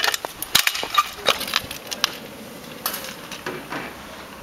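Kick scooter clattering on pavement: a quick irregular run of sharp clacks and knocks as the deck and wheels land and rattle, easing after about three seconds into a quieter rolling noise.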